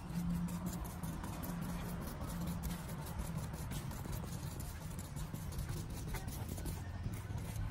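Metal spoon scraping and tapping inside a small cylinder, pressing grey powder down, in a run of small clicks and scratches. A low steady hum sits underneath.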